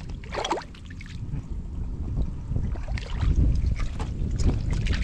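Hands working through mud and shallow water: sloshing and squelching with irregular splashes, heaviest in the second half.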